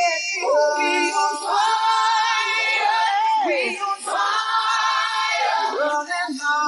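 Pop song with several voices singing long held notes in layered harmony, with little or no accompaniment audible.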